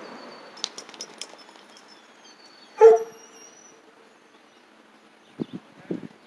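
A dog barks once, short and loud, about three seconds in. A few light clicks come before it, and a few low thumps come near the end.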